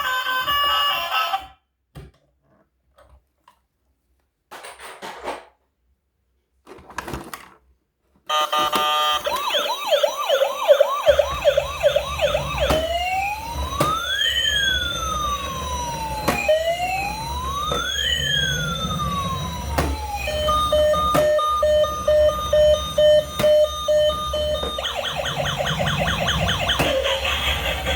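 Electronic police-car siren cycling through its patterns. A fast yelp comes first, then a slow rising-and-falling wail, then a steady two-tone hi-lo, then the fast yelp again. Before it there is a moment of music and a few faint short sounds.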